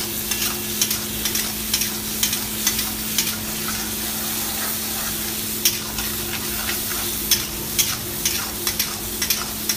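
Chopped tomatoes and onions sizzling in a hot wok while a long metal ladle stirs them, scraping and clicking against the wok at irregular intervals. A steady low hum runs underneath.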